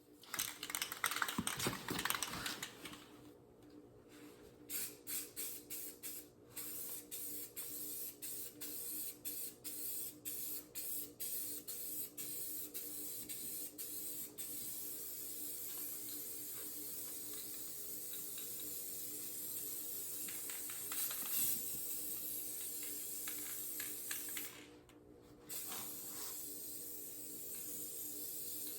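Spray paint hissing from a nozzle: first a run of short quick bursts, then long continuous passes with one short pause near the end.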